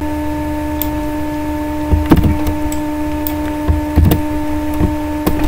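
A steady buzzing hum with a few sharp clicks over it, about two seconds in, at four seconds and near the end: computer mouse clicks while selecting and deleting in Paint.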